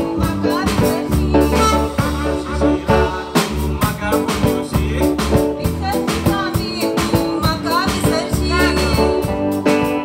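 Live band playing a song with drum kit, keyboard and bass, and a singer's voice in places.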